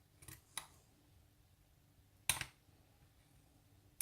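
Lock pick and tension wrench clicking against the pins of a challenge lock: a few small metallic clicks, the loudest about two seconds in, as the lock is worked back into a false set.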